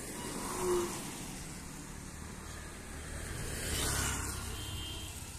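Road traffic on a wet road, with a motor scooter passing close about four seconds in: its engine and tyre hiss on the wet surface swell and fade. A brief sharp sound comes about a second in.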